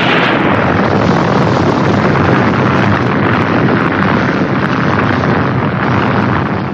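Tokusatsu explosion sound effect: a loud, sustained rumbling roar with fine crackling, holding steady for several seconds and easing slightly near the end.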